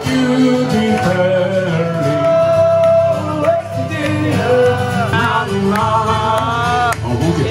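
Live folk music in a pub: a man singing over acoustic guitar, with a fiddle.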